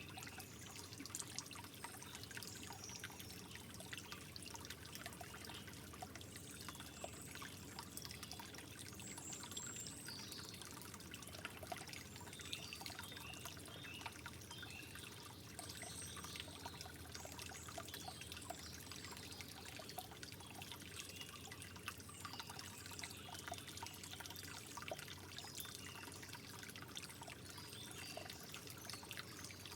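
Water trickling and dripping softly: a steady gentle flow with many small high-pitched bubbling plinks and drips.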